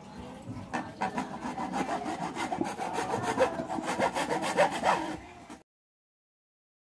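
A saw cutting through a CPU cooler mounting bracket in repeated back-and-forth strokes. It then cuts to dead silence about five and a half seconds in.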